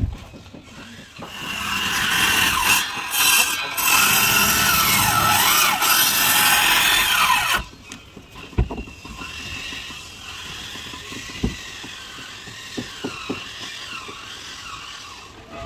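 A hand-held power tool cutting for about six seconds, its whine rising and falling as it bites, then cutting off suddenly. A fainter, wavering tool whine follows, with a few knocks.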